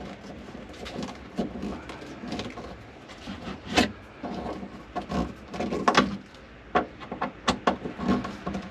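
Irregular clicks and knocks of hand work on a tight seat-belt mounting screw in a car's interior, the sharpest knocks about four and six seconds in.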